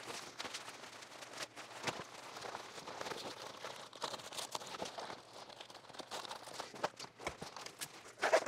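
Fabric walls of a roof-rack shower privacy tent rustling and crinkling as they are handled and taken down, with scattered clicks and knocks; a louder knock comes near the end.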